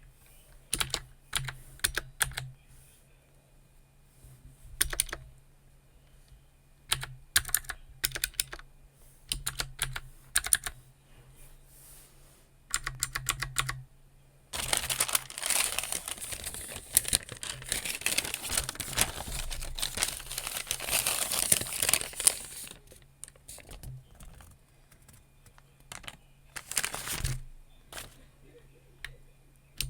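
Computer keyboard typing in short bursts of key clicks with pauses between, and a denser unbroken run of about eight seconds around the middle.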